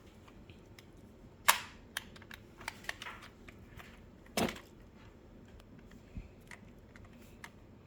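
Toy box being opened: scattered sharp clicks and snaps of cardboard and plastic packaging, with a loud snap about a second and a half in and a thump about four and a half seconds in.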